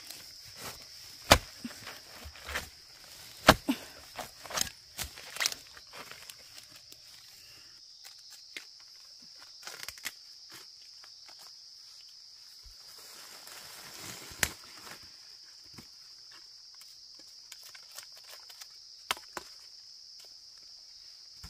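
Footsteps and sharp snaps and crackles in undergrowth, loudest and most frequent in the first six seconds, with a rustle about two-thirds of the way through, over a steady high insect drone.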